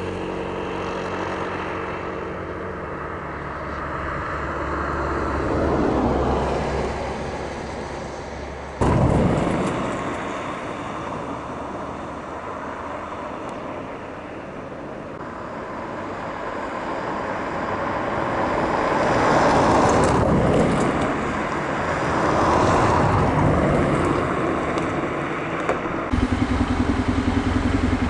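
Motor engine noise that swells and fades several times, as engines pass. It changes abruptly about nine seconds in, and again near the end, where a steady low engine hum takes over.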